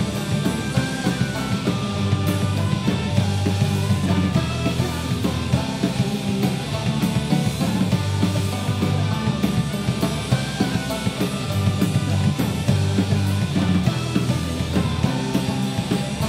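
Celtic punk band playing live: a male voice singing over guitars and a drum kit.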